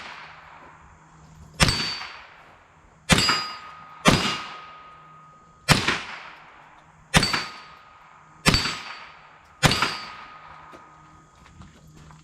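A .22 LR AR-15-style rifle fired seven times, shot by shot, at irregular gaps of about one to one and a half seconds, each crack followed by a brief ringing decay.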